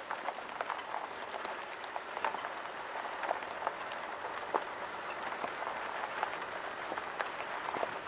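Car tyres rolling slowly over a loose gravel surface: a steady crackle of small stones crunching and clicking under the wheels.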